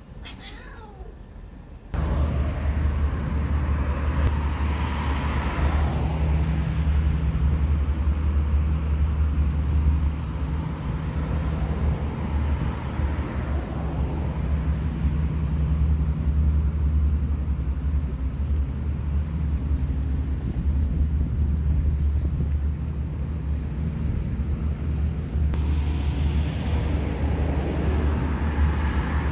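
A cat gives a short falling yowl in the first second or so. About two seconds in, a loud, steady, low outdoor rumble takes over and runs on, with a little more hiss near the end.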